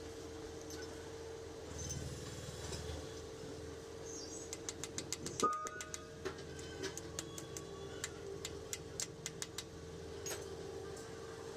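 Steel pliers clicking and scraping against a split pin and the slotted axle nut of a truck's front wheel hub as the pin is worked out. The clicks come in an irregular run from about halfway, with one sharper metallic clink that rings briefly, over a steady low hum.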